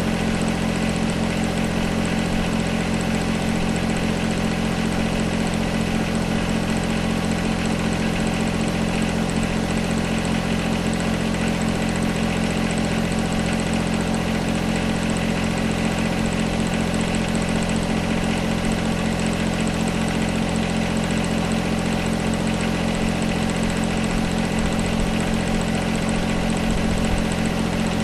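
John Deere 1025R compact tractor's three-cylinder diesel engine running steadily at a constant speed.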